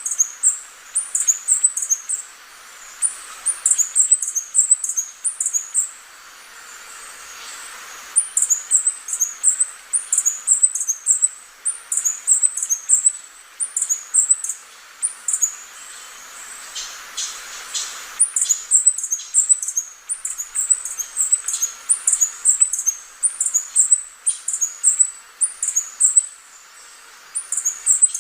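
Hummingbird calling: runs of high, squeaky chip notes, several a second, broken by short pauses.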